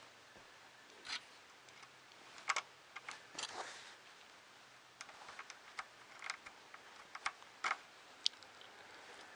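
Light, irregular clicks and taps of small plastic parts being handled and fitted by hand, with a brief rustle about three and a half seconds in.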